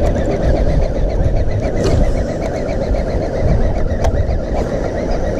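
Steady, loud low rumble of a boat on open water, with a single sharp click about four seconds in.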